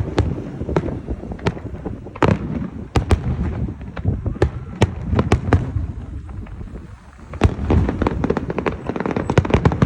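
Fireworks display: a steady stream of sharp bangs and crackling. There is a short lull about seven seconds in, then a dense run of rapid cracks.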